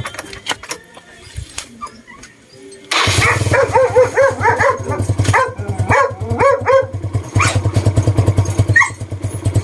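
Cold motorcycle engine started on the electric starter about three seconds in: it fires at once and settles into a steady idle. A dog barks repeatedly over the engine.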